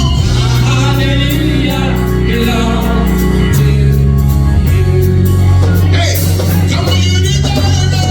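Gospel worship music in full swing: voices singing over a live band with a steady bass line and drums keeping time with regular cymbal ticks.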